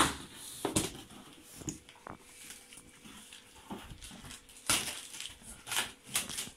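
Cardboard carton being opened and its packing handled: flaps folded back and plastic-wrapped parts pulled out, making irregular rustles, scrapes and knocks. The loudest come at the start and again in a cluster about five to six seconds in.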